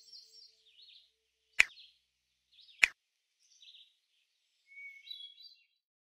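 Small birds chirping in short, high phrases, with two sharp clicks about a second apart near the middle.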